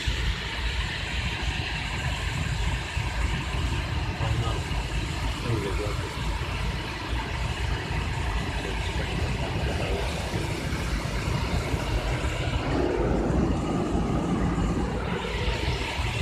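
Overhead air dryers of a D&S car wash blowing a steady rush of air onto the car, heard from inside the car.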